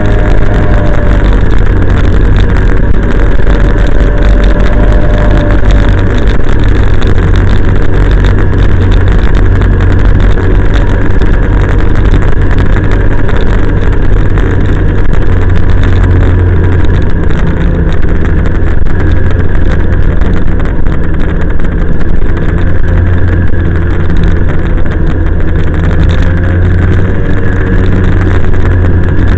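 Snowmobile engine running steadily at trail speed, loud and close, a continuous drone with a heavy low rumble whose pitch drifts slightly now and then.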